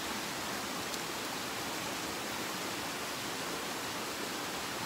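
Steady rushing of a small rocky stream flowing over stones.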